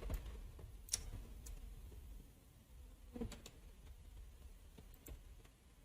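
A few faint, scattered clicks of a computer mouse.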